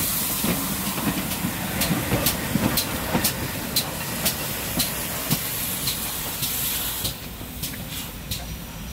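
GWR 6400 class pannier tank locomotive passing close by, hissing steam, with a run of sharp clicks from its wheels on the track. The hiss drops about seven seconds in as the engine draws away.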